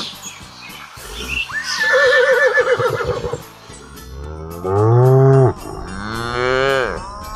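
A cow mooing twice: a loud, low call about four and a half seconds in, and a second one near the end that drops in pitch as it finishes. A higher, wavering animal call comes about a second and a half in, and music plays underneath.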